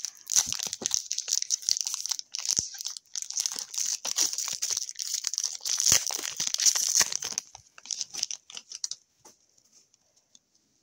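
Foil hockey card pack wrapper being torn open and crinkled, a dense crackling with many small clicks that thins out and stops about nine seconds in.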